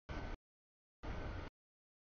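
Double-stack freight train passing over a grade crossing: a steady rumble of wheels on rail. It is heard in two short bursts, each cut off abruptly by complete dropouts in the audio.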